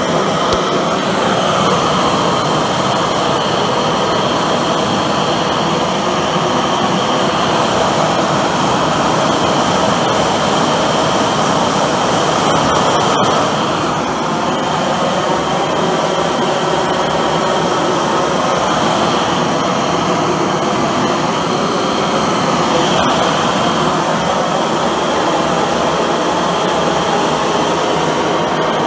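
High-velocity propane forge burner running flat out: a loud, steady jet-like rush of burning gas, with a faint high whistle running through it.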